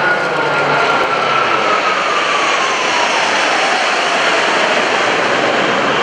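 Formation of F/A-18 Hornet jets, twin General Electric F404 turbofans each, passing overhead: a loud, steady jet rush with an engine whine that starts to fall in pitch about two seconds in as they go by.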